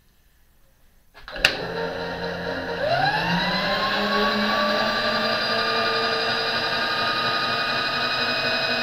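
Electric table power-feed motor on a mill/drill switching on with a click about a second in, then winding up in pitch and running at a steady whine as it drives the table along the X-axis.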